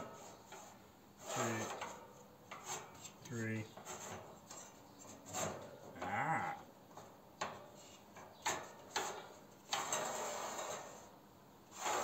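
Plastic computer case fan scraping and rubbing against wooden slats as it is held and shifted into place, in a series of short scrapes and knocks.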